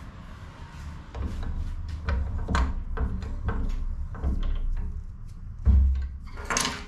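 Brass valve and fittings knocking and clinking against a steel bench vise as the valve is set in the jaws and clamped, a run of short knocks with a loud clunk near the end followed by a bright metallic clink.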